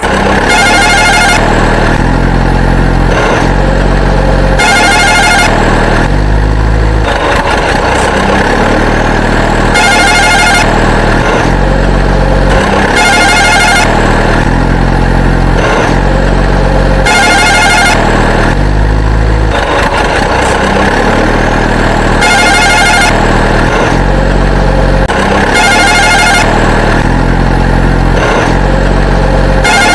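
A loud, continuous soundtrack of low tones that change step by step about every half second, with a short high burst repeating every three to four seconds.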